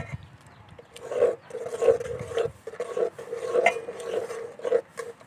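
Metal ladle stirring milk and vermicelli in an aluminium cooking pot. It scrapes and knocks against the pot in repeated strokes, about one every half second to second, setting the pot ringing.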